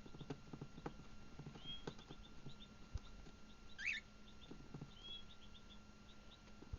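Cockatiels chirping softly in short high notes, with one louder rising call about four seconds in. Faint scattered taps and scratches run underneath.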